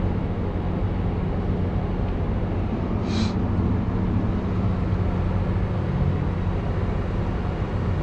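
Tractor engine running steadily under load, heard from inside the cab while pulling a grain cart, with a brief hiss about three seconds in.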